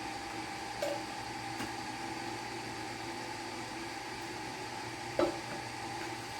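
Steady mechanical hum of room noise, with a few faint clicks and one slightly louder knock about five seconds in.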